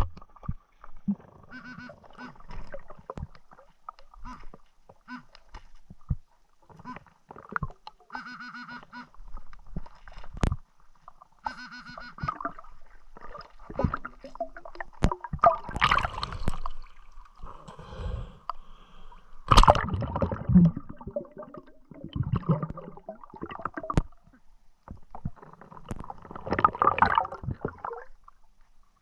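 Water gurgling and sloshing around the camera, with scattered sharp clicks and knocks; louder surges come about 16, 20 and 27 seconds in.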